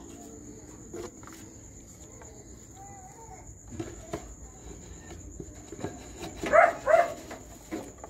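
Two short, loud animal calls in quick succession about two-thirds of the way in, over a steady high whine and a few faint chirps.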